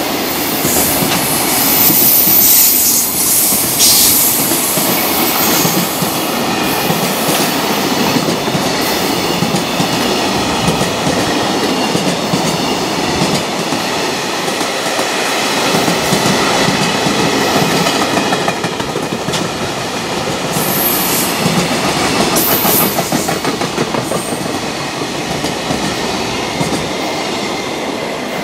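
Container wagons of a long freight train passing at speed, wheels clattering over the rail joints, with a few brief high-pitched squeals. The sound fades near the end as the last wagon goes by.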